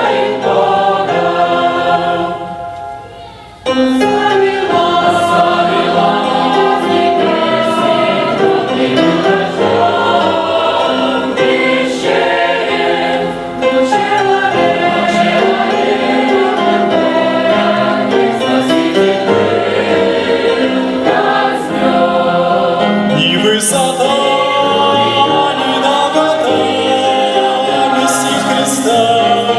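Choir singing a Christian song. The music fades away about two seconds in and comes back suddenly near four seconds.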